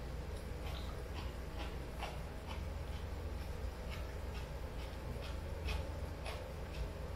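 Close-up eating sounds: coleslaw being chewed, with a string of short, crisp clicks about two to three times a second, and a spoon working in a small cup, over a steady low room hum.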